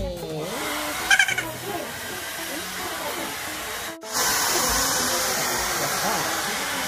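A child's high-pitched giggle, a short burst of laughter about a second in. After a sudden cut near the four-second mark, a handheld hair dryer blows with a steady rushing hiss.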